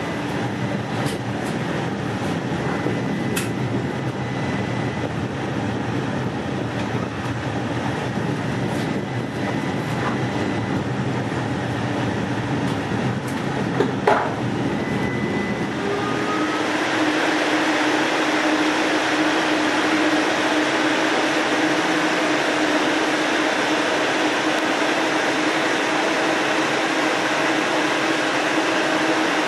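Cabin noise inside a United Streetcar-built DC Streetcar light-rail car as it rides along street track: a steady running rumble with a few faint clicks and one short, sharp sound about 14 seconds in. From about 16 seconds a steady hum sets in and the noise grows a little louder.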